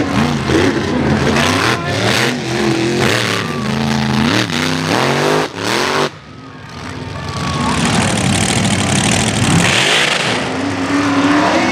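Off-road race truck engine revving hard, its pitch climbing and falling over and over. It drops away sharply about six seconds in, then builds back up to a steady high rev.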